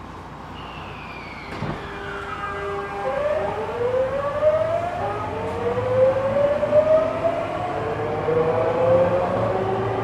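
Tokyu 9000 series electric train's GTO-VVVF inverter and traction motors pulling away from a stop: a tone falls early on, then several whines rise in steps as the train accelerates, heard from inside the car.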